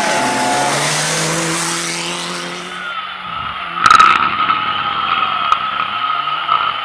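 Mitsubishi Lancer Evolution rally car powering past on loose gravel, its engine revving through gear changes over a heavy spray of gravel and tyre noise, fading about three seconds in. A sharp knock follows about a second later, then a more distant rally car engine revving up and down.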